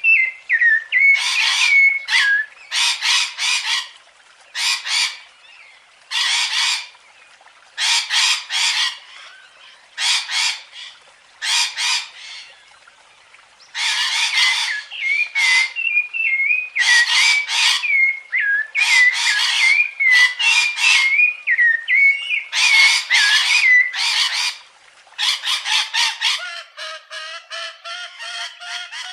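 A bird giving harsh squawks in short clusters, with warbling whistled notes between them. About 25 seconds in, a different animal call takes over: a rapid run of pulsed, pitched notes.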